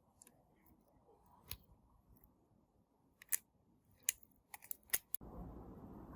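A few separate sharp clicks and snips of small hand tools or phone parts being handled, the last several coming in quick succession near the end; then a steady background noise switches on abruptly.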